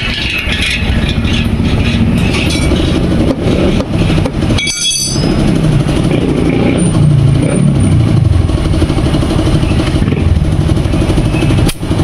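A motor vehicle engine running close by, with a short break about five seconds in.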